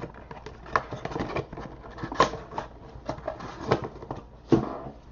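Trading cards and card packs being handled by hand: irregular light taps, clicks and rustles.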